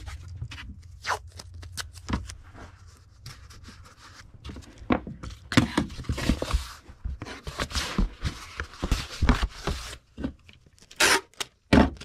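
Tape being pulled and torn off while a comic is taped into a cardboard mailer, with scrapes, knocks and rustling of the package. There are two loud sharp sounds near the end.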